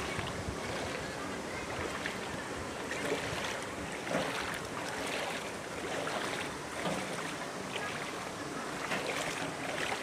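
River water running over shallow rocky rapids: a steady, even rush, with some wind rumbling on the microphone.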